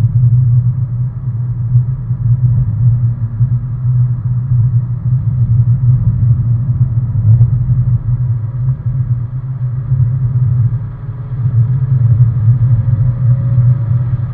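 Car lapping a race track, heard from inside the cabin: a steady, loud low drone of engine and road noise. A faint whine rises in pitch over the last few seconds as the car accelerates down a straight.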